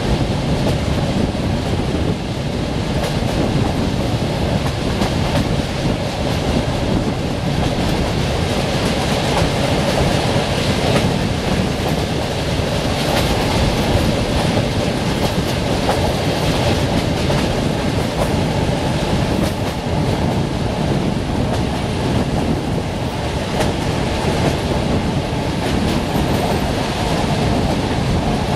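Passenger train coaches running along the track at speed, heard from outside an open window: a steady rumble of wheels on rails with clickety-clack as the wheels cross the rail joints.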